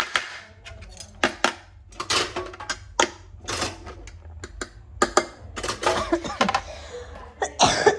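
Dishes and cutlery being handled, with a run of irregular clinks and knocks and a louder clatter near the end.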